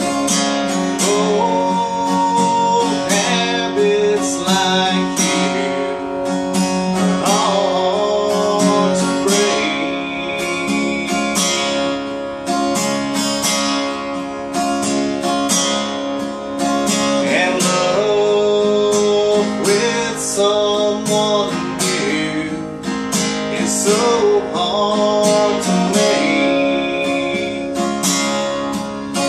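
Acoustic guitar strummed in a steady rhythm, with single notes ringing over the chords.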